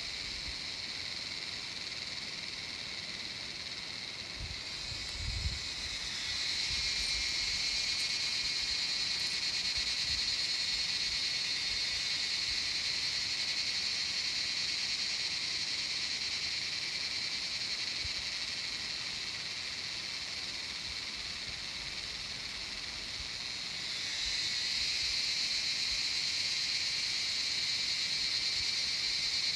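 Insects buzzing in a steady, high-pitched, continuous drone, which the uploader takes for wood-boring beetles. It swells louder about six seconds in, eases off, and swells again near the end. A brief low thump comes about five seconds in.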